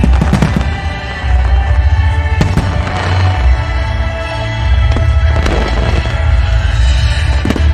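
Aerial fireworks bursting in a finale, with several sharp bangs and spells of crackling. Music with a heavy steady beat plays throughout under the fireworks.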